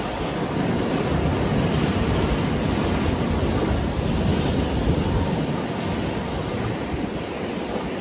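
Rough-sea surf: waves breaking and washing over rocks and against a stone breakwater. It makes a continuous rushing wash with a deep low rumble.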